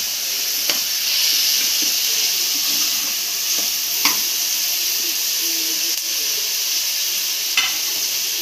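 Diced brinjal, tomato and onion sizzling in oil in an aluminium pressure cooker as a steel ladle stirs them, the ladle knocking sharply against the pot three times.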